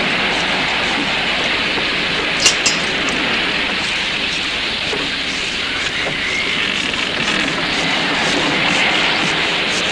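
Heavy rain falling steadily, with two sharp clicks close together about two and a half seconds in.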